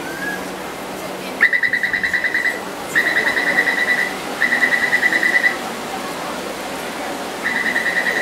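Taipei Metro door-closing warning: a high electronic beep pulsing about ten times a second. It comes in bursts of about a second, four times, signalling that the doors are about to close before the train departs.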